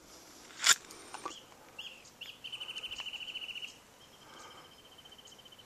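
A small songbird singing: a couple of short chirps, then a fast trill of about fifteen notes a second lasting just over a second, followed by a fainter, longer trill at the same pitch. A single sharp click near the start.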